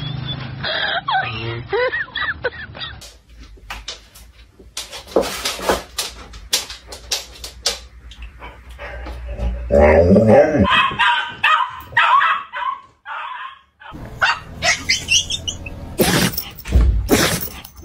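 A dog barking and yelping in short bursts, with longer wavering calls in the middle and scattered knocks between.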